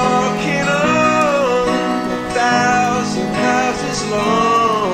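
Acoustic guitar cover song: strummed and plucked guitar chords under a singing voice that holds long notes with gliding pitch, with no clear words.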